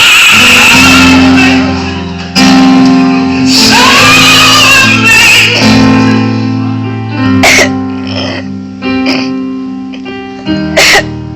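Live gospel worship music: singers holding out the end of a chorus line over the band, after which the band plays on more quietly with a few sharp accents.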